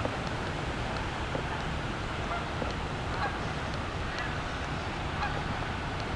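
Geese honking in short, scattered calls every second or so, over a steady low rumble.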